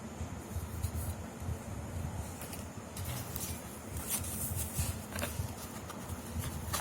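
Rustling and light clicks of packaging and parts being handled, thickening from about halfway in, over an uneven low rumble.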